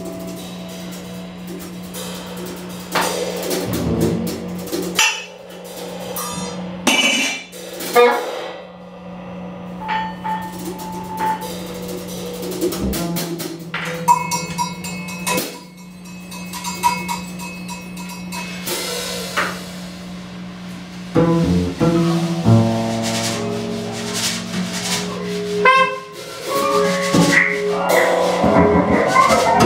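Free-improvised music from a small ensemble of double bass, drum kit, electric guitars and reeds. A steady low drone holds underneath, with scattered drum and cymbal hits and short held tones, growing denser near the end.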